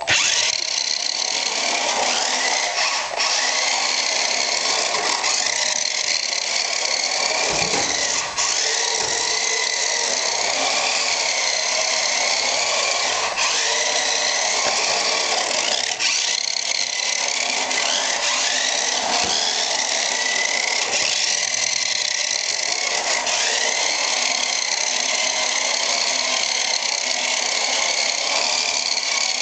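Small electric motor and gears of a Nikko radio-controlled Nissan Skyline toy car, whining steadily as the car drives across a tile floor. The pitch of the whine rises and falls as the throttle changes.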